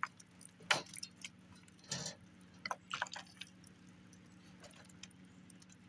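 Faint, scattered clicks and drips as shot-through plastic water jugs are handled, with water leaking from the bullet holes.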